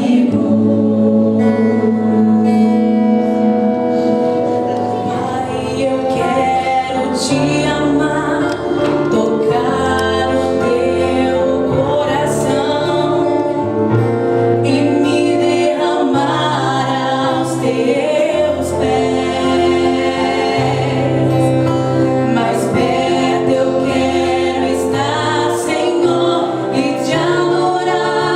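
A vocal group singing a slow song in harmony, choir-style, over a steady bass line.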